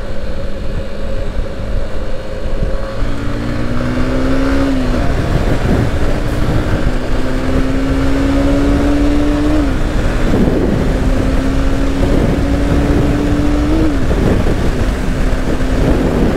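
Yamaha Fazer 150's single-cylinder four-stroke engine running steadily at low speed for about three seconds. It then accelerates, its pitch climbing through each gear and dropping at three upshifts, about 5, 10 and 14 seconds in, before holding steady. Heavy wind noise rumbles on the microphone.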